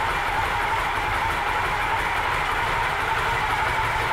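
2006 Victory Touring Cruiser's Freedom V-twin engine idling steadily.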